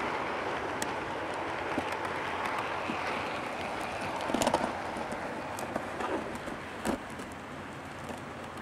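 HO-scale model freight train rolling along the track, its wheels making a steady rushing rumble that slowly fades as the caboose draws away. A few sharp clicks come around the middle and again a couple of seconds later.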